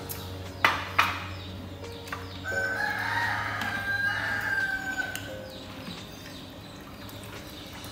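A rooster crowing once, a long drawn-out call of about two and a half seconds, starting a third of the way in. Just before it, two sharp knocks, like tableware set down, come close together.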